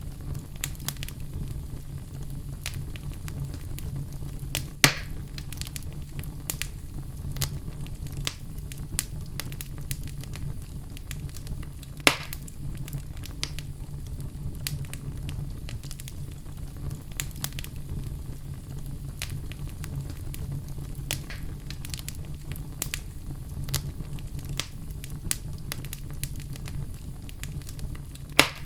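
Wood fire burning in a fireplace, crackling continuously over a low steady rumble of the flames, with three louder sharp pops scattered through.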